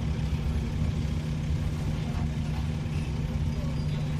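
Dennis Trident 2 double-decker bus engine running at a steady, even drone.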